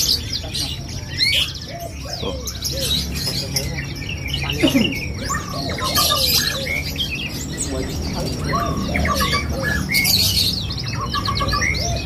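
Caged blackthroat (black-throated canary) singing non-stop, a fast run of high chirps, trills and sliding notes, with other caged birds calling around it.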